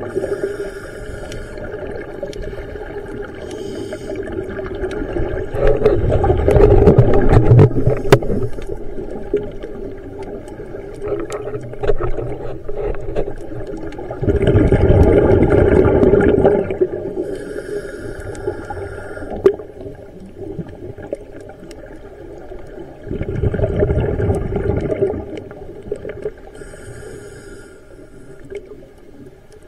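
Scuba regulator breathing underwater: short hissing inhalations alternate with loud, low rushes of exhaled bubbles, three breaths out about eight to nine seconds apart.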